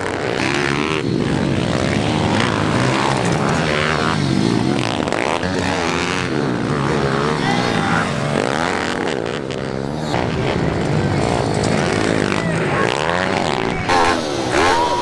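Several small pit bike engines revving hard on the track, their pitches overlapping and rising and falling as the bikes accelerate and shift.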